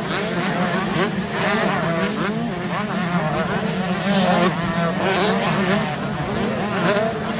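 A pack of 125cc two-stroke motocross bikes racing past, many engines revving up and down at once in overlapping, constantly changing whines over a steady low hum.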